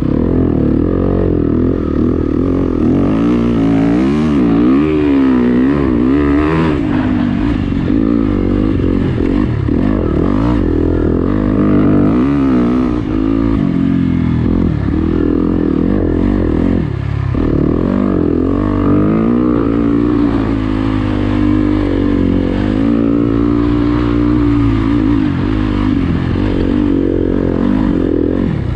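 Dirt bike engine heard from the rider's own bike, revving hard and falling back every second or two as the throttle opens and closes while it pulls through deep sand on a motocross track.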